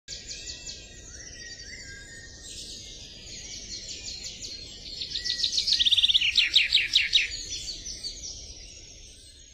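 Several birds chirping and trilling together. The birdsong grows loudest about five to seven seconds in, then fades out near the end.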